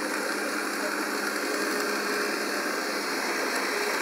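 Kenwood stand mixer's motor running steadily, driving its meat-grinder attachment to push minced meat through a sausage-stuffing nozzle into a pork casing. It makes an even whir with a faint hum.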